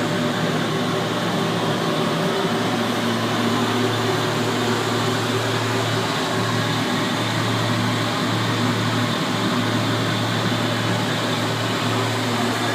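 Biomass powder burner running: its blower and flame make a steady rushing noise over a constant low hum.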